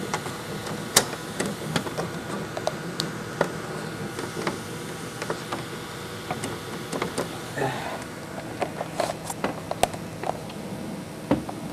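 Irregular clicks of computer keyboard keys and mouse buttons over the steady hum of a desktop computer.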